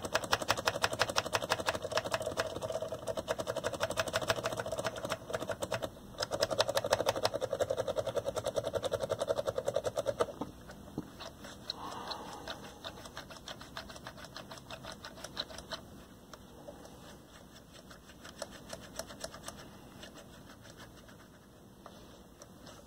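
Slide switches on a 1984 RCA AXR054W AM/FM/TV set being flicked rapidly back and forth, a fast run of clicks, working freshly sprayed contact deoxidant into the switch contacts. About ten seconds in it turns to quieter, scattered clicks as the control knobs are turned.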